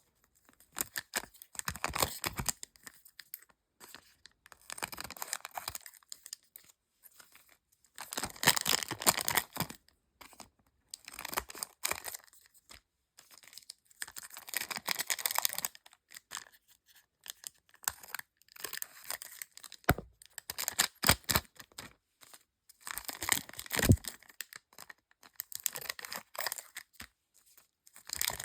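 Foil Pokémon card booster pack wrappers crinkling and tearing open, in repeated bursts every couple of seconds with sharp clicks between.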